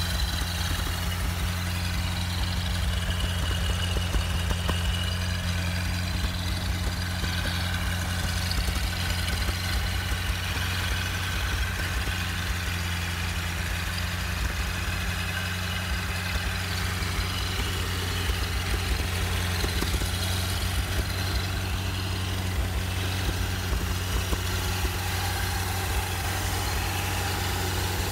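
Packard 356 cubic-inch nine-main-bearing flathead straight-eight engine on a run stand idling steadily, without a fan. The owner says the carburetor still needs more adjusting.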